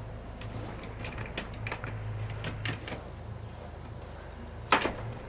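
Clicks and knocks of mooring lines and deck gear being handled on a catamaran, over the steady low hum of its idling engine. A run of light knocks comes about one to three seconds in, and a single loud knock near the end.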